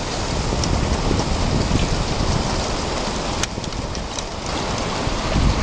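Hard rain pouring steadily, with a low rumble underneath. A sharp click stands out about three and a half seconds in.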